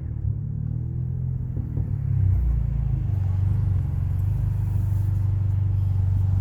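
Honda Accord 1.5-litre turbocharged four-cylinder engine heard through a loud aftermarket exhaust: PRL front pipe and downpipe with the muffler and resonator deleted. Its revs drop at the start and it settles into a steady, rumbling idle.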